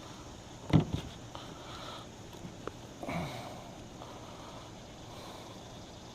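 Handling noises on a kayak: a sharp knock about a second in, a few light clicks, and a short rustle near the middle, over a faint steady hiss.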